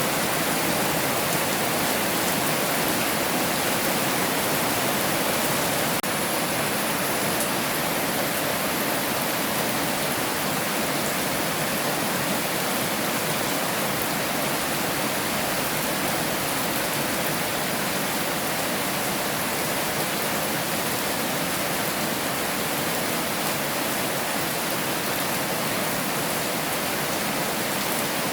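Heavy rain falling steadily as a dense, even hiss with no distinct drops or thunder.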